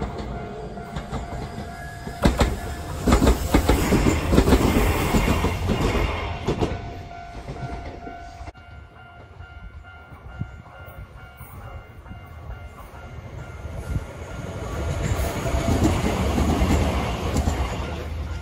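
Shizuoka Railway electric commuter train passing close by: the wheels clack rapidly over the rail joints, loudest for several seconds before the sound drops away abruptly. Train noise swells again later on, then eases off near the end.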